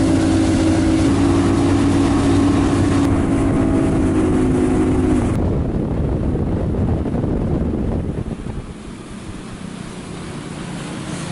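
Mercury OptiMax outboard running at high speed on a bass boat, a steady engine tone under wind buffeting the microphone and spray rushing off the hull. After about five seconds the engine tone drops out and mostly the rush of wind and water is left, quieter in the last few seconds.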